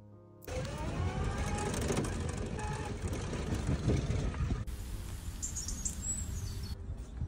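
Engine and road noise heard from inside a moving vehicle's cabin, with the engine's pitch rising as it gathers speed over the first second or so. About two-thirds of the way in it gives way to quieter outdoor air with high bird chirps.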